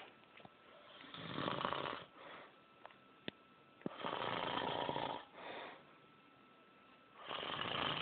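An old man snoring loudly in his sleep: three long snores about three seconds apart, each followed by a shorter, softer breath. Two sharp clicks come between the first and second snores.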